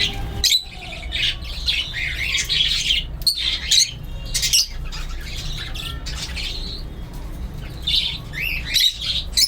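Budgerigar chicks squawking and chirping over and over in short rasping calls, over a low steady hum.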